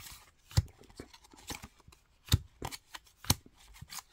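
Cardboard trading cards snapping and sliding as they are flipped off a hand-held stack one at a time. There are about six short, sharp snaps at uneven intervals.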